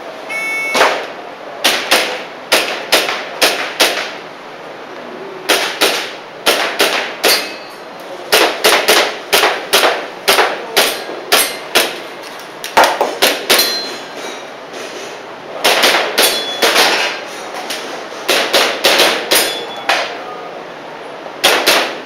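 A shot-timer beep about half a second in, then airsoft pistol shots fired in quick strings of several sharp cracks, with short pauses between strings.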